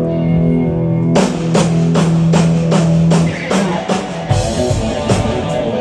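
Live rock band playing: sustained bass and guitar notes, then a drum kit comes in about a second in with a steady beat.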